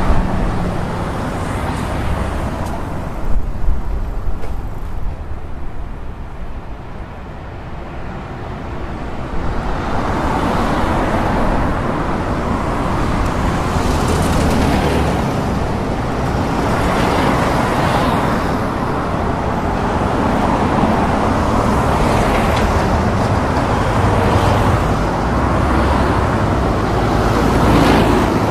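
Road traffic noise: a steady rush of cars, swelling and fading as vehicles pass every few seconds, after a few seconds that are quieter near the start.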